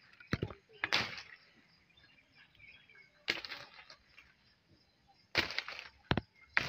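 A long wooden pole knocking and shaking the branches of a lemon tree to bring the fruit down: sharp knocks and bursts of rustling leaves, about five in all.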